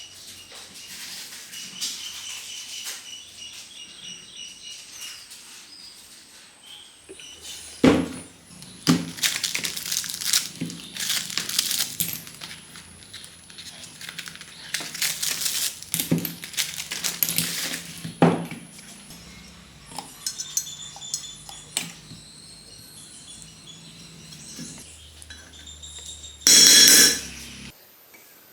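Hard objects clinking and knocking as they are handled, with scattered strikes through the middle, then a loud hiss lasting about a second near the end.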